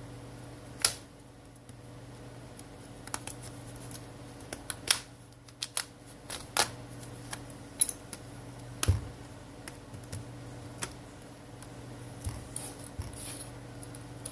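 Irregular sharp plastic clicks and snaps as a pry pick is worked around the edge of a Samsung Galaxy Tab 3 10.1's back cover, popping its clips loose.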